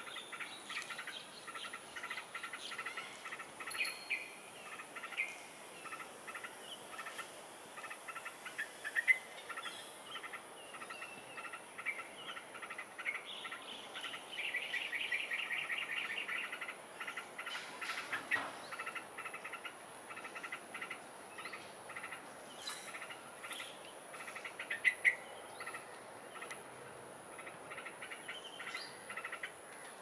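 Yellow-vented bulbul calling in short staccato notes, repeated throughout, with a fast run of rapid notes about halfway through.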